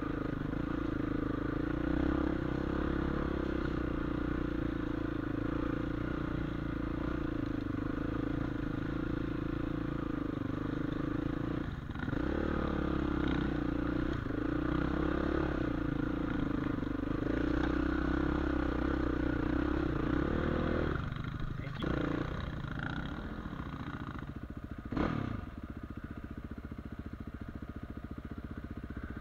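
Off-road vehicle engine running steadily on a dirt trail, its note dipping briefly about twelve seconds in and again around twenty seconds, then running quieter; a single knock about twenty-five seconds in.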